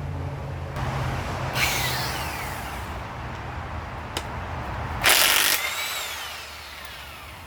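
Power tool run in two short bursts on the crank pulley bolt of a Honda B16A2 engine, each burst dying away in a falling whine as the tool spins down.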